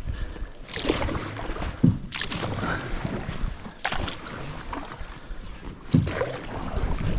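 Canoe paddle strokes: water swishing and splashing with each pull, and now and then a sharp knock of the paddle against the hull, about one stroke every second or two as the canoe is paddled hard.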